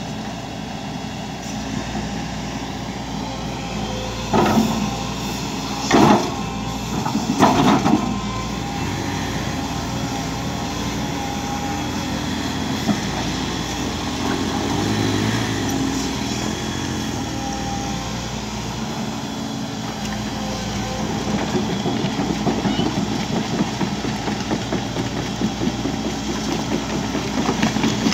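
Volvo EC210D crawler excavator's diesel engine running steadily, with three short loud bursts about four to eight seconds in. It grows louder and rougher in the last several seconds as the machine moves onto the gravel bank.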